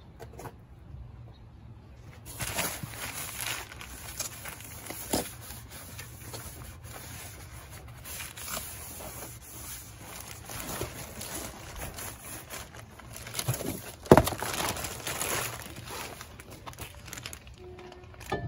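Packing paper and plastic wrapping rustling and crinkling as a new brake rotor is unwrapped from its cardboard box and handled. The rustling starts about two seconds in and is broken by small knocks, with one sharp knock about three quarters of the way through.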